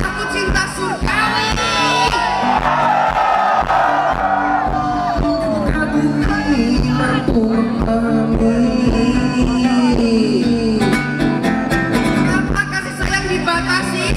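Live acoustic guitar and singing through a concert PA, recorded from the audience.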